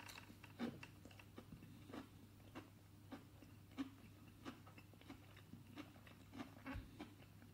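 Faint chewing of a crumb-coated chicken doughnut dipper: small soft crunches and mouth clicks at irregular intervals, over a low steady hum.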